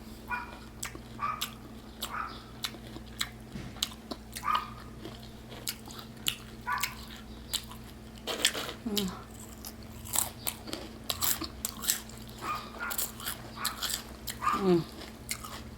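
Close-up crunchy bites and chewing of a fried mozzarella onion ring coated in crushed Flamin' Hot Cheetos. Many sharp crunches come one after another.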